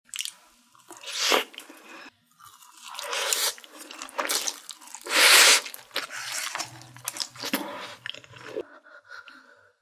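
Close-miked eating sounds: bites into takoyaki and a loud slurp of spicy stir-fried noodles about five seconds in, with wet chewing in between and after.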